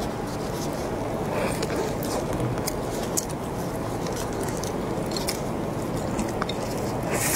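A large crusty cream puff being torn apart by gloved hands: scattered small crackles of the crisp cookie crust and soft squishes of the cream filling, over a steady low background hiss.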